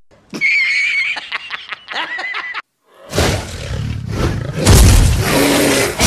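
Animal call sound effects: a high, wavering squeal with clicks, then after a short pause a loud, low, rough roar that builds and is loudest near the end.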